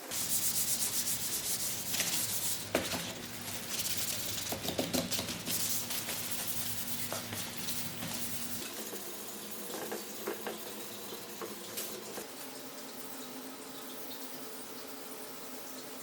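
Power sander running against wood, a steady motor hum under a dense scraping hiss. The motor stops a little over halfway through, leaving quieter rubbing and a few light knocks.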